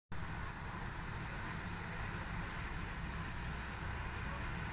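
Steady rushing noise at the stove, under a wok of water blanching sliced mushrooms, green beans and carrots.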